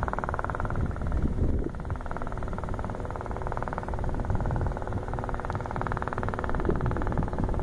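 Robinson R22 Beta II helicopter on approach: its two-blade main rotor and piston engine running steadily, heard as a rapid, even beat.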